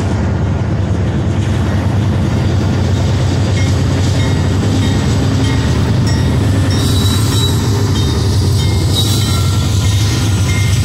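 The lead diesel-electric locomotives of a Union Pacific freight train passing close by: a GE C44AC leading, with EMD SD70ACe and GE units behind. Their engines run with a loud, steady low rumble that builds over the first couple of seconds, and faint high wheel squeal joins from about a third of the way in.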